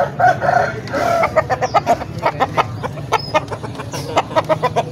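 Fighting-cock roosters clucking in a fast run of short notes, with a couple of longer calls in the first second or so.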